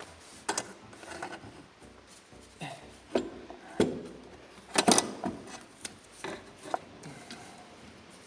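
Irregular knocks, clunks and scraping of metal parts as an alternator is manoeuvred into place in a car's engine bay. The loudest clatter comes about halfway through.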